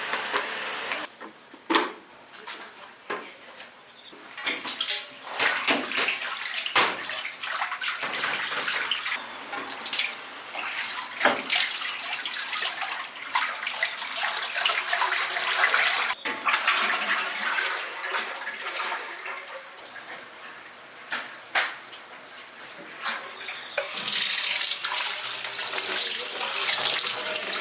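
Water running and splashing, with repeated knocks and clatter of things being handled.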